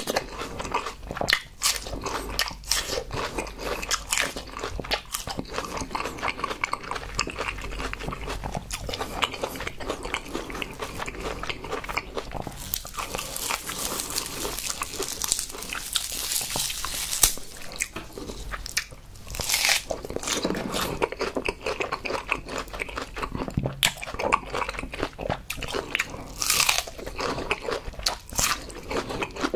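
Close-up crunching and chewing of raw green succulent-like plant pieces: crisp bites and wet chewing clicks throughout, with a longer crackling rustle partway through as a cone-shaped head is torn apart by hand.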